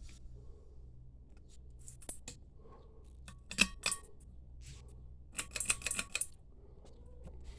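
1989 View Fan V36R ceiling fan with its motor humming low and steady, and a few small clusters of light clicks and ticks about two, three and a half, and five and a half seconds in.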